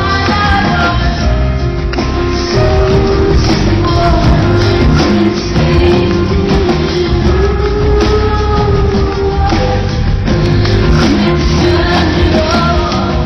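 Live rock band playing, with a woman singing a held, gliding melody over a steady drum and bass groove and bright percussion.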